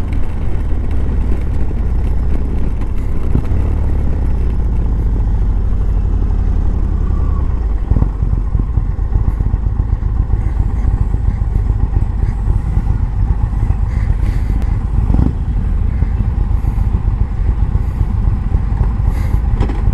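Indian touring motorcycle's V-twin engine running as the bike rides in slow traffic and comes to a stop, heard from the rider's seat. The low rumble eases about eight seconds in as the bike slows toward the stop.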